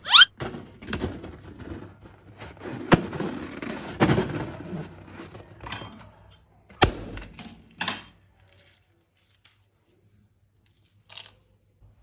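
Slime and balloons being handled: a brief high rising squeak, then a string of knocks and crackly, sticky handling noise that stops about eight seconds in.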